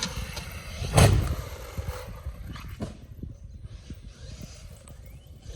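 Traxxas Maxx RC monster truck on a jump: its brushless electric motor and tyres are heard, then it lands with a loud thump about a second in and a smaller knock near three seconds. After that the truck's running fades.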